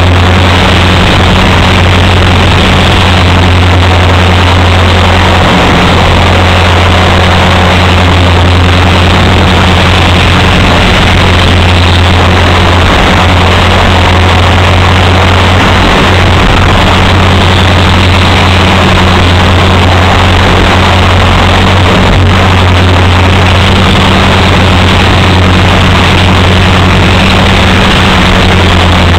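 Align T-Rex 450 electric RC helicopter's rotor and motor in flight, heard very loud from a camera mounted on the helicopter: a steady low drone with a strong hum and a thick rushing wash over it, unchanging throughout.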